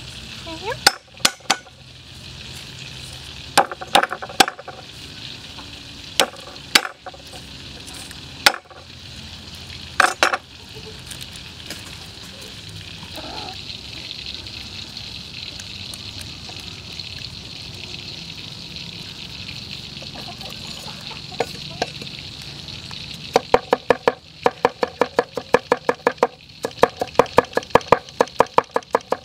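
Meat cleaver striking a wooden stump chopping block while cutting garlic: single knocks now and then as cloves are sliced, then near the end fast, even chopping, about four to five strokes a second, as the garlic is minced.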